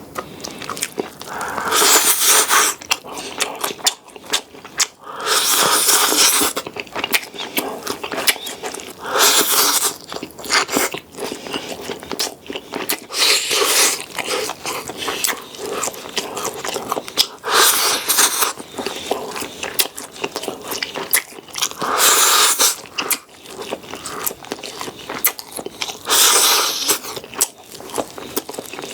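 Close-miked eating: a person chewing and biting with many small wet clicks, with a louder noisy burst about every four seconds, each lasting about a second.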